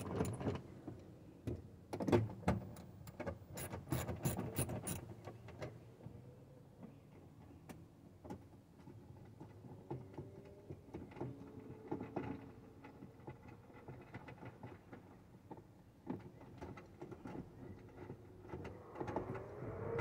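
Clicks and light knocks of hands and tools working at the inside trim of a pickup truck's door. They come thick and sharp for the first few seconds, then sparser and quieter.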